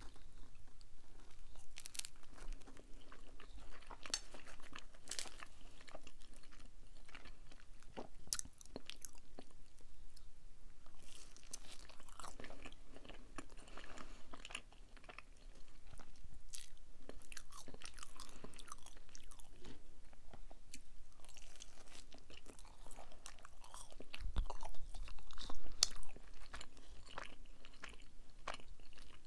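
Close-miked chewing of cheese pizza with crisp crunches from the crust, dipped in ranch sauce. A louder burst of crunching comes near the end.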